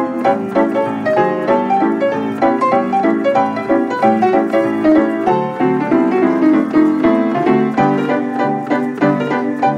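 1926 Kohler and Campbell player piano playing a paper music roll: a popular song of the 1920s in a steady rhythm of chords over a bass line.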